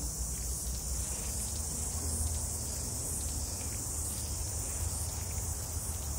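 A steady, high-pitched insect chorus that swells and fades slightly, over a low rumble.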